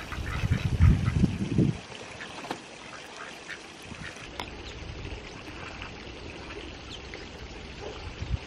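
Farmyard ducks and geese calling, short scattered quacks and honks, with a low rumbling in the first two seconds.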